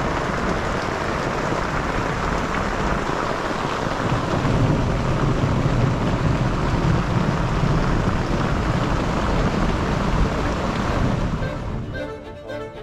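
Heavy downpour on a tent with thunder rumbling, the rumble swelling in the middle. About a second before the end the storm sound fades out and background music comes in.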